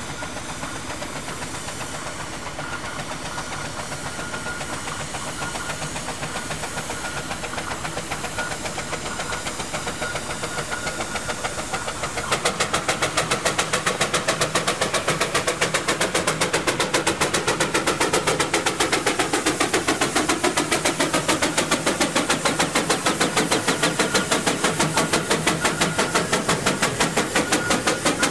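Heritage vehicle engine running with a fast, even beat, slowly getting louder and then much louder about twelve seconds in, as it comes close.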